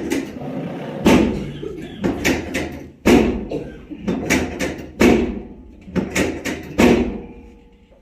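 A run of about a dozen sharp thuds, one every half second to second, from hands-on chiropractic work on a patient lying face down on a treatment table; they stop about seven seconds in.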